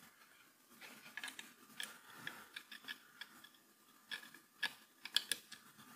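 Faint, irregular clicks and rustles of wires and small plastic connectors being handled, with a few sharper clicks about four to five seconds in, as a USB cable is plugged in to power the main board.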